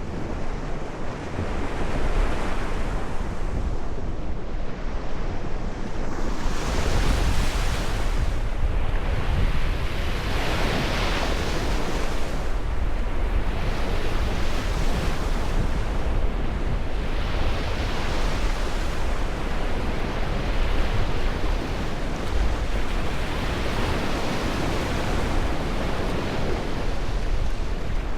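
Ocean surf: waves break and wash in one after another, swelling and ebbing every few seconds. A low rumble of wind on the microphone runs beneath.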